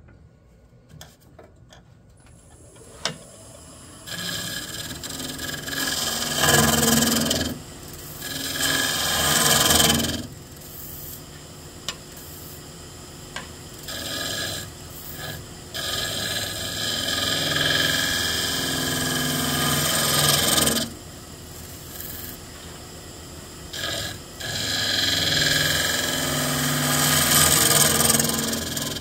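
Turning tool cutting the inside of a white pine bowl spinning on a wood lathe: a hiss of shavings in repeated passes of a few seconds each, with quieter gaps between them. The first two seconds are quiet apart from a few light clicks.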